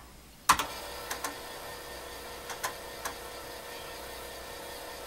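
TRS-80 Model III 5¼-inch floppy disk drive reading a directory: a sharp click about half a second in, then the drive motor hums steadily while the head clicks a few times as it seeks.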